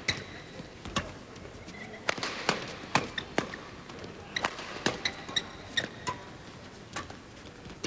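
Badminton rackets striking the shuttlecock in a fast doubles rally: a quick series of sharp hits, one or two a second, with short high squeaks of shoes on the court mat in between.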